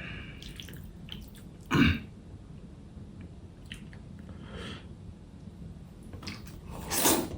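A person eating at close range: soft wet mouth clicks and chewing, with two louder short noises, one about two seconds in and one near the end.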